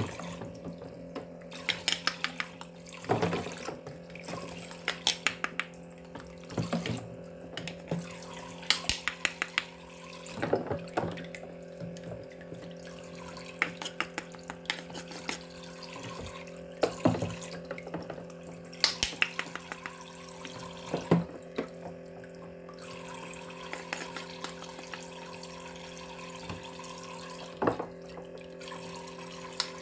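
A toy kitchen sink's pump hums steadily while water runs from its toy faucet into the basin, the splashing growing stronger over the last several seconds. Every few seconds comes a short rapid crackle as toy fruit and vegetable halves, joined with velcro, are cut apart with a toy knife, with a few light plastic knocks between.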